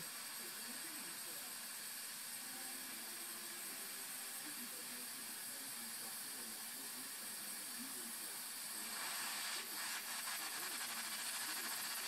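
Steam hissing steadily from a Kamenstein locomotive-shaped tea kettle heating on a gas burner. The hiss grows louder about nine seconds in as steam pressure builds toward driving the kettle's louvered rear wheel.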